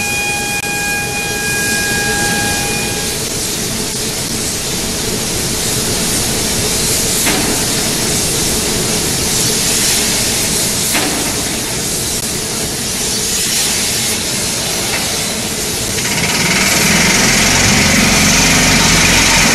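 Loud, steady industrial noise: a hiss and rumble of heavy machinery, with a faint high steady tone over it for the first few seconds. About 16 seconds in it grows louder and a low rhythmic pulse joins in.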